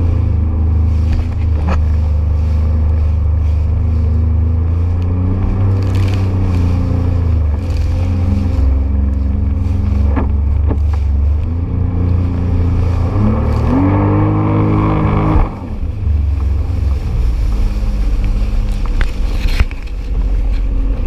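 Jet ski engine running under way, its pitch rising and falling with the throttle as it crosses choppy water. About two-thirds through the revs climb, then drop off abruptly, with occasional sharp knocks throughout.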